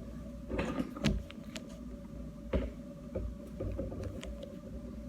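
Handling noises from a toy being worked with the hands: a short rustle, then two sharp clicks about a second and a half apart and a few small ticks, over a faint steady hum.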